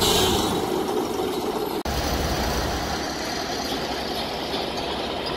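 Heavy diesel engines of crawler sideboom tractors idling steadily with a low rumble. The sound drops out for an instant about two seconds in, and the rumble is fuller afterwards.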